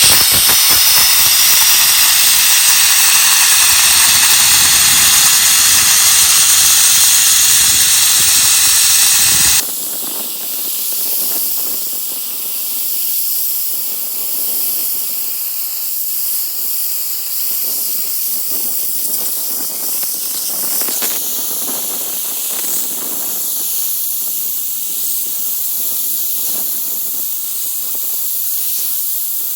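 Sandblaster blasting the steel mower deck: a loud, steady hiss of compressed air and grit. About ten seconds in it cuts off abruptly to a quieter, thinner hiss that continues.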